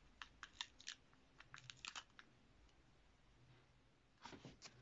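Faint clicks and paper crinkling from a small cardboard matchbox crank box as its matchstick cranks are turned and the paper strip scrolls through the viewer, in three short clusters: just after the start, around the middle, and near the end.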